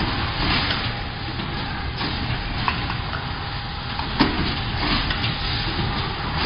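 Automatic rigid phone-box making machine running: a steady mechanical drone with a faint steady whine and a few sharp clacks at uneven intervals.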